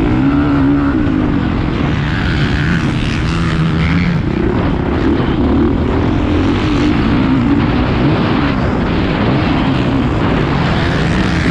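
Motocross bike engine heard onboard at race pace, its revs rising and falling continually over ruts and jumps.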